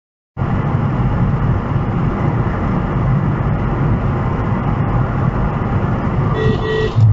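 Steady road and engine noise of a car cruising at highway speed, heard inside the cabin. It starts suddenly a moment in, and two short beeps sound near the end.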